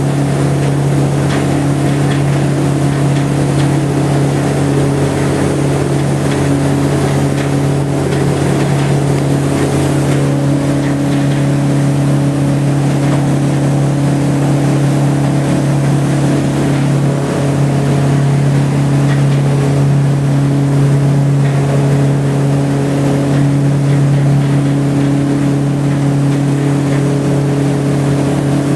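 Ferry boat's engine running steadily at cruising speed, heard from on board as a constant low drone with a wash of water noise.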